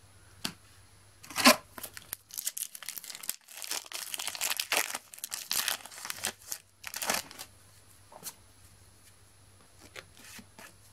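Foil Match Attax trading-card packet being torn open and crinkled in the hands. There is a sharp crackle about a second and a half in, then a thick run of tearing and crinkling in the middle, dying down to a few faint rustles near the end.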